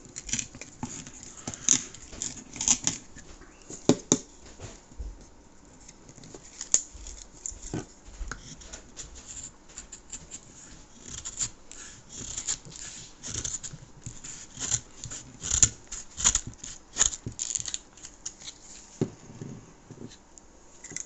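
Browning M1911 pocket knife blade cutting and piercing cardboard: a long run of irregular, sharp rasping slices and scrapes.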